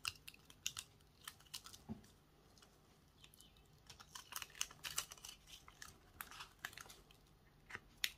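Adhesive holographic vinyl being weeded: irregular small clicks and crackles as a metal weeding hook picks at the cut vinyl and the scrap sheet is peeled back off its backing, quieter for a moment around two to three seconds in.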